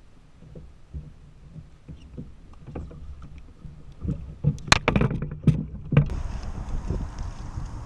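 A flurry of sharp knocks and rattles on a plastic fishing kayak while a freshly caught fish is handled beside the boat. Steady wind and water noise follows.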